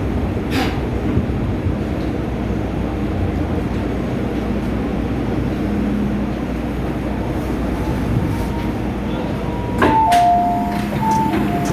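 MTR M-Train electric train running slowly to a stop with a steady rumble. About ten seconds in the doors release with a sharp knock, and a two-tone door chime sounds as they slide open.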